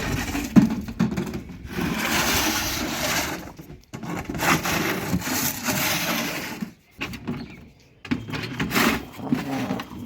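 A dog chewing and tearing at a toy: scraping, rustling noise in three long bursts with short pauses between.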